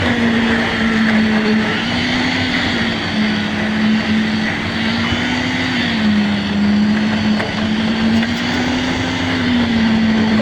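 A motor running steadily, its strong hum drifting slightly up and down in pitch over a constant rushing noise.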